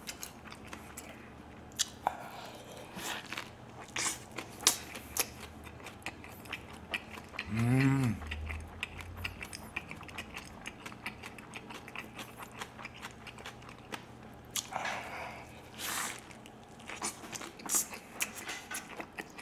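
Close-miked chewing of a big bite of a tortilla wrap filled with grilled chicken and fresh vegetables: wet mouth sounds with many small sharp clicks and smacks. A brief hum of the voice comes about eight seconds in, and a short breathy sound comes near three-quarters of the way through.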